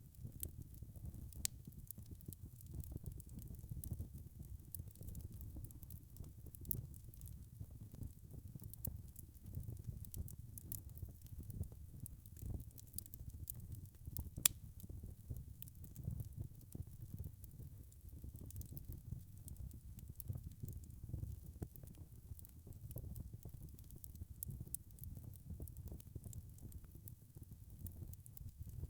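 Wood fire crackling: a steady low rumble of burning logs with frequent small, sharp crackles and one louder pop about halfway through.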